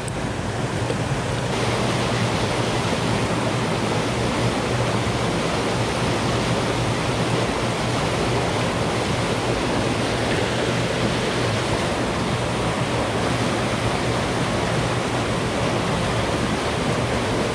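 Steady rush of turbulent tailwater discharged from the hydroelectric dam's generators, churning along the foot of the concrete dam wall.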